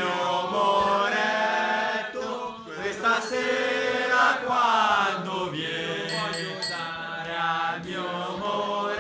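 Voices singing together in a slow, chant-like style over a held low note.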